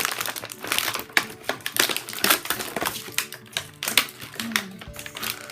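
Rapid, irregular clicking and rattling of small plastic toy pieces and packaging being handled.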